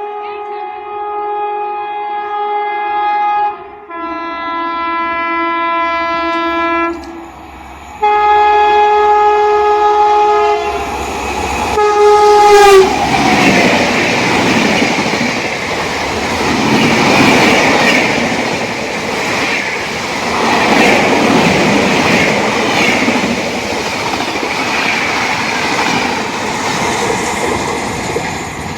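An Indian Railways express train sounding its air horn in several long blasts, the pitch dropping as it passes about twelve seconds in. The loud rush and wheel clatter of coaches going by at speed follow.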